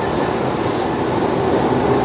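An Alexandria Raml tram, a blue-and-cream multi-car electric tram, rolls slowly past close by with a steady noise of its wheels running on the rails.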